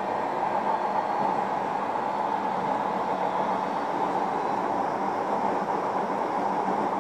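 Running noise heard inside a JR Kyushu 305 series electric train, recorded in motor car MoHa 305-1: a steady, even rumble of wheels and running gear with the train under way between stations.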